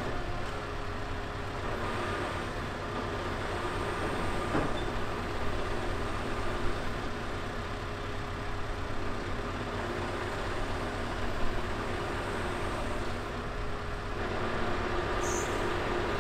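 Scania R650 V8 diesel engine running steadily at constant speed, driving the hydraulics of the Copma 1150 loader crane as the boom works. A single sharp knock about four and a half seconds in, and a brief hiss near the end.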